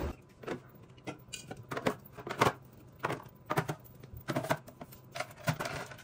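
Light, irregular clicks and knocks as aluminium soda cans are handled and set into a clear plastic can organizer.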